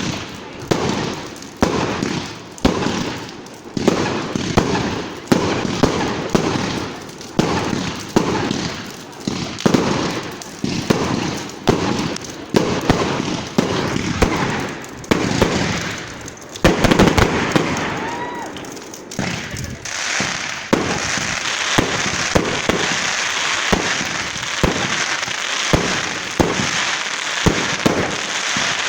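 Fireworks going off: a string of bangs about one a second, each with a short tail. From about twenty seconds in, it turns into a denser crackling with quick bangs.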